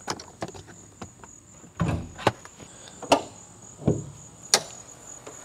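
A car's door and hood latch being worked: a run of sharp clicks with two duller thumps, about two seconds apart. A steady high-pitched insect drone carries on behind.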